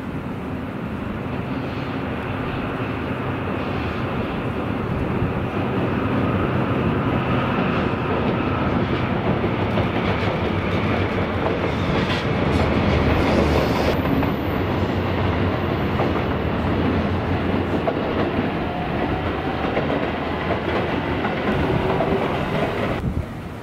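DD51 diesel-hydraulic locomotive hauling a freight train past: a steady low engine drone and the rumble and clatter of the wagons' wheels, growing louder as the train goes by. The sound drops off abruptly near the end.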